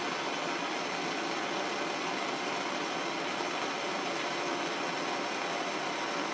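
Handheld gas blowtorch burning with a steady, even noise while its flame heats a solder joint.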